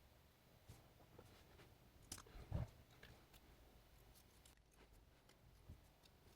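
Near silence with a few faint clicks and taps of small tools and parts being handled during a phone repair, the loudest a soft thump about two and a half seconds in.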